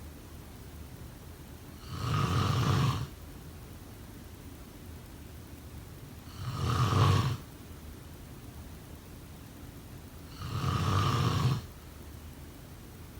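A sleeping person snoring: three snores about four seconds apart, each about a second long, with a faint steady hiss between them.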